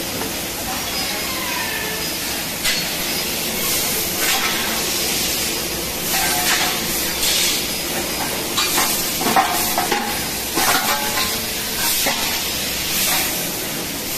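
Steady hissing machine noise of a metalworking shop, with scattered short clinks and knocks, more of them in the second half.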